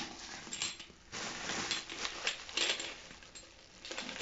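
Small steel 12-gram CO2 cartridges clinking against each other as they are handled and counted, with rustling in between.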